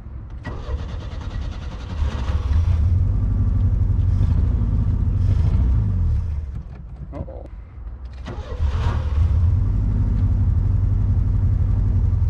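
1985 Pontiac Fiero's 2.5-litre Iron Duke four-cylinder being started and run, in two loud stretches of about four seconds each with a sag in between.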